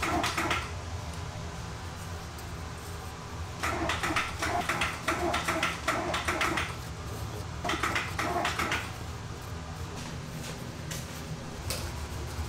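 Serrated bread knife sawing through soft fried donuts, in three runs of quick rasping back-and-forth strokes, over a steady low hum.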